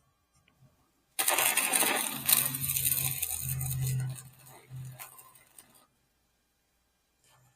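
Wire-feed welder arc crackling as a weld is run for about three seconds, with a low hum underneath, then breaking into a few short sputters before stopping.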